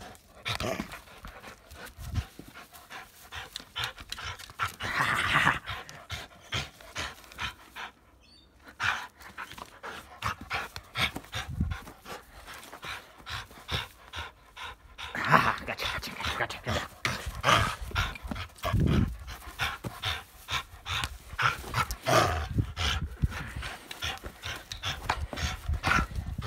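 A dog panting hard in quick, irregular breaths while tugging on a plastic ring toy.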